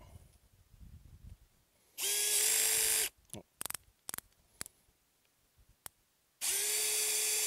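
Hilti cordless drill-driver running in two steady bursts, about a second and then a second and a half, working into an aluminum bimini pole at its PVC connector. A few light clicks come between the bursts.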